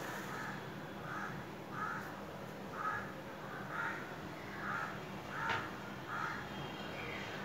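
A bird calling over and over, about nine short calls spaced just under a second apart.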